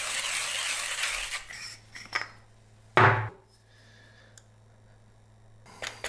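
King Grinder K4 hand coffee grinder being cranked, its burrs crunching beans at a fine espresso setting, stopping about a second and a half in. Then one loud, sharp knock about three seconds in, a couple of fainter clicks near the end.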